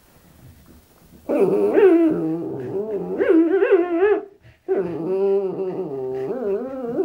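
A dog growl-whining in two long, pitched stretches that start about a second in, with a short break between them, the pitch wavering up and down like a motorbike revving.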